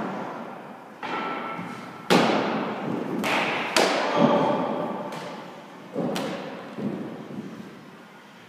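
A baseball smacking into leather gloves: a fastball pops into a catcher's mitt about two seconds in, followed by several more sharp thuds as the ball is thrown back and caught. Each thud rings out in the long echo of a gym.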